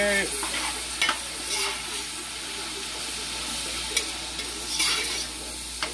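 Food sizzling in a hot pan as carrots are stirred through, with a handful of sharp clacks of the stirring utensil against the pan.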